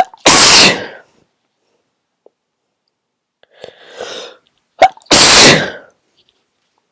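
A person sneezing twice, very loud and strong, about five seconds apart, each sneeze opening with a short sharp catch. A quieter breathy build-up comes shortly before the second sneeze.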